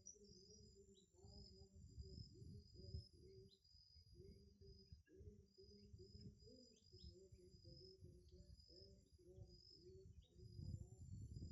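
Faint outdoor bird sounds: scattered short, falling chirps over a steady high-pitched trill, with a run of low repeated notes and a low rumble of wind underneath.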